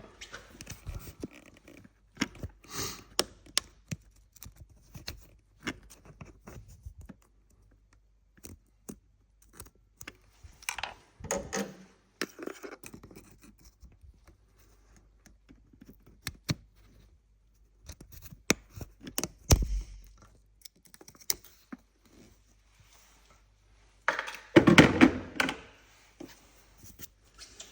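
Small clicks, scrapes and knocks as a pick works the metal U-shaped clip and the plastic electrical connector is pried and wiggled off an old Bosch LE2-Jetronic fuel injector. The louder scraping and knocking come about 11 seconds in and again from about 24 to 26 seconds in.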